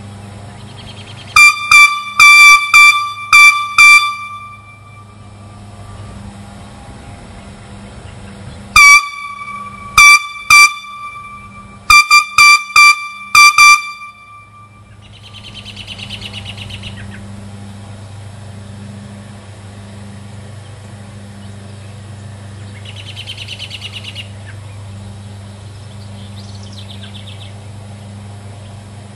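Railroad air horn blown on about 40 psi of compressed air: three bursts of short toots on one high note, loud enough to clip the recording. Fainter bird chirps follow in the second half.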